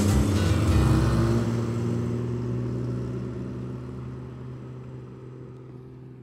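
Cars driving away for the first second or so, then a steady, held low chord that fades slowly toward silence.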